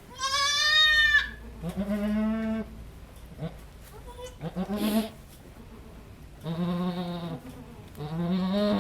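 Goats bleating during kidding: one high-pitched bleat at the start, then four lower, quavering bleats spaced a second or two apart, typical of a doe straining in labor.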